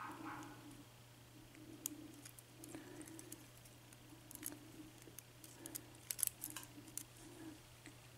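Faint, scattered small metallic clicks and taps of tools and tiny pins being worked out of a padlock's pin chambers, over a low steady hum.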